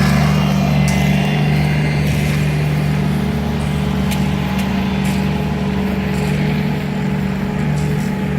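Skid loader engine running steadily with an even hum.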